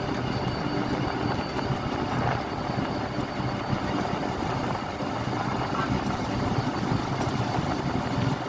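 Steady road-traffic ambience: engine and tyre noise from many vehicles blending into one continuous wash, with no single vehicle standing out.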